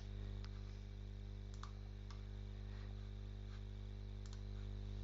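A handful of scattered computer mouse and keyboard clicks over a steady low electrical hum.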